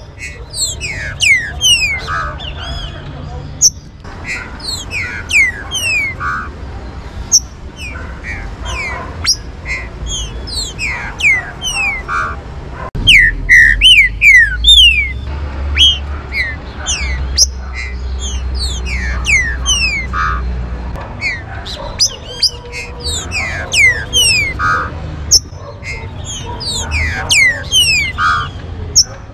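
Trinca-ferro (green-winged saltator) song: rapid, repeated series of clear descending whistled notes, over a low background rumble that swells from about halfway through for several seconds.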